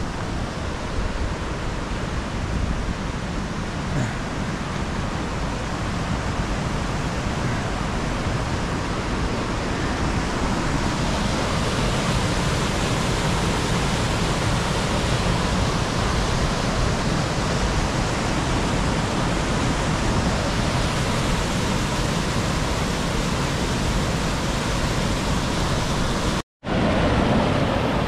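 St. Mary's Falls, a mountain waterfall, rushing steadily as it pours through a rock gorge, growing louder over the first ten seconds or so. The rush breaks off for a moment near the end.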